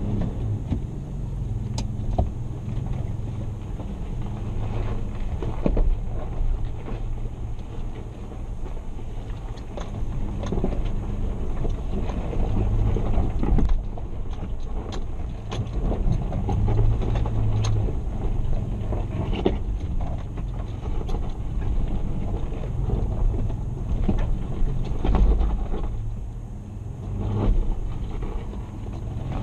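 Toyota FJ Cruiser's V6 engine running at low revs, heard from inside the cabin while the truck crawls up a rocky track, with scattered knocks and rattles as it goes over the rocks.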